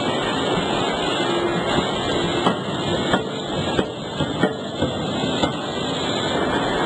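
Forge-shop machinery running with a steady din, and a string of about eight sharp metallic knocks, roughly one or two a second, through the middle.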